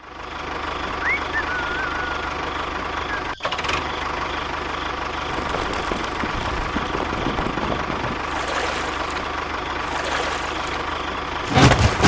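Small motor of a miniature DIY tractor running steadily with a rattling drone, briefly cutting out about a third of the way in and turning louder near the end.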